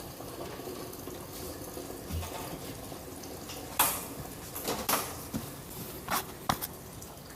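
A few sharp clicks and clinks of air-conditioner parts being handled during disassembly, over a steady low hiss. The loudest clink comes about four seconds in, and the rest follow over the next three seconds.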